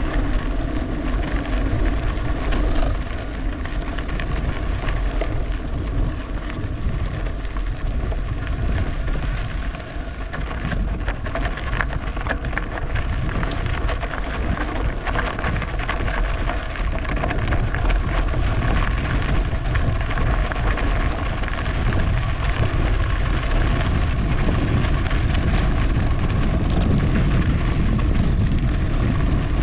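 Riding noise from an e-bike on a trail: continuous wind rumble on the microphone with tyre and drivetrain noise, and a faint steady whine from the electric motor running underneath.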